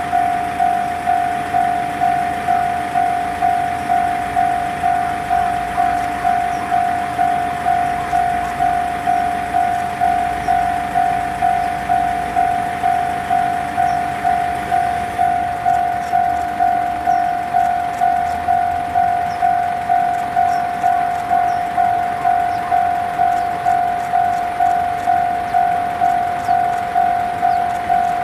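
Japanese railway level-crossing warning bell ringing: one clear electronic ding, repeated evenly about three times every two seconds. It signals that the crossing is closed for an approaching or passing train.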